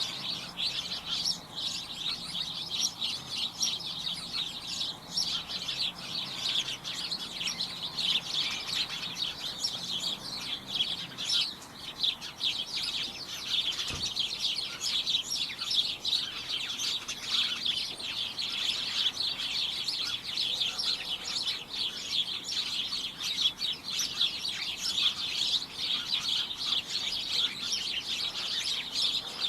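A flock of small birds chirping continuously outside a window, many short high chirps overlapping into a dense, cacophonous chorus.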